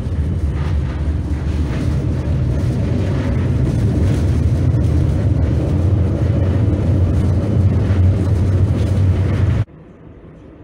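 Tram running along the line, a steady low rumble of wheels on rails and running gear heard from inside the rear of the car. It cuts off suddenly about a second before the end, leaving a much quieter rumble.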